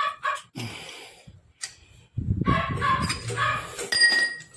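A dog barks a couple of times right at the start, then a longer, loud animal call runs through the second half, about two seconds in.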